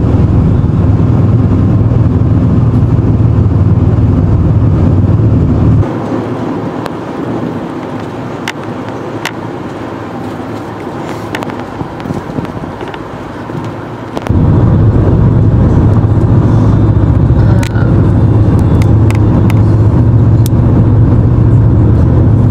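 Car on the move: a steady, loud low rumble of engine and road noise. About six seconds in it cuts abruptly to a quieter stretch, then comes back just as suddenly about eight seconds later.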